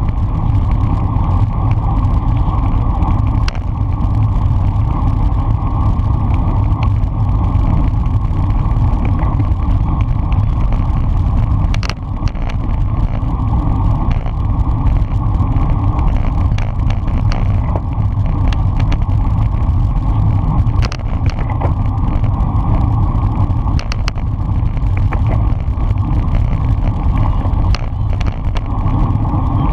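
Steady rush of wind and road noise on a handlebar-mounted camera on a road bike riding at race speed in a pack, with scattered short clicks from the bikes.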